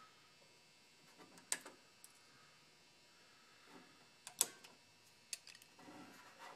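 A few faint, scattered clicks and light scrapes, the loudest about four and a half seconds in, as paint that has lost its adhesion is picked and flaked off the car's bare metal.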